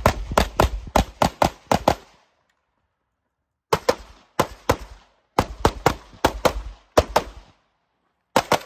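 Rapid strings of handgun shots, fired in quick pairs and runs a fraction of a second apart. The shots stop for about a second and a half, about two seconds in, then resume in several more short strings.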